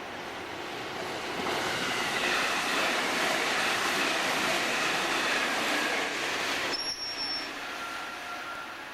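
Meitetsu electric train running past on the rails, its wheels squealing. The noise swells, then drops away about seven seconds in.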